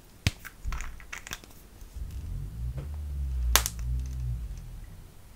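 Plastic makeup squeeze tube being handled and opened: a sharp click, then a run of small crinkly clicks as the cap is worked off. This is followed by a low rubbing rumble while the tube is squeezed in the fingers, with one sharp click about three and a half seconds in.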